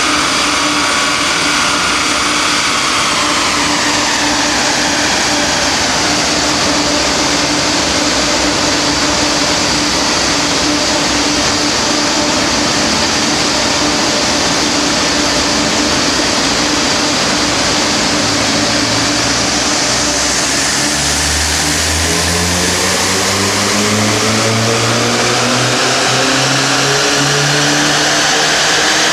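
Tuned Audi A4 1.9 TDI turbodiesel (AFN four-cylinder) running on a chassis dynamometer over a steady rushing noise from the dyno's cooling fan and rollers. A high whine falls away in the first few seconds. From a little past halfway the engine pulls under load, its pitch climbing steadily through the revs in a power run.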